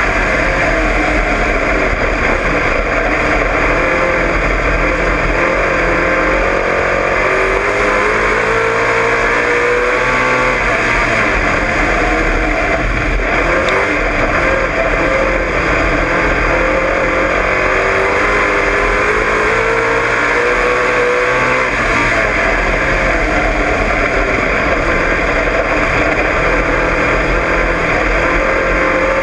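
Dirt-track race car engine at racing speed, heard from inside the cockpit, its pitch climbing as it accelerates and dropping back as it lifts off, over and over every several seconds as the car goes round the oval. Loud, with heavy rattle and rushing noise in the cockpit.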